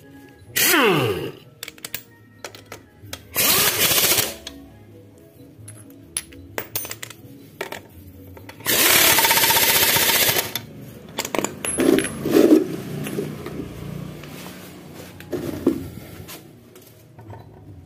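Impact wrench running in three short bursts, the first winding down in falling pitch and the longest about two seconds, as the scooter's rear axle nut and swingarm bolts are run in. Light metal clinks and knocks of tools and parts in between.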